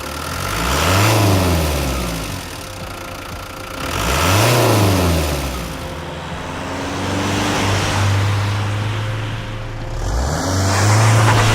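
Renault Master II van's diesel engine revved twice, each time climbing and falling back, then running steadily before rising again and holding near the end.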